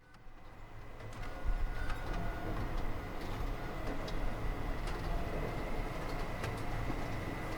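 Steady workshop machinery noise with a low rumble, a thin high steady tone and scattered clicks and knocks, fading in over the first second or so after a cut.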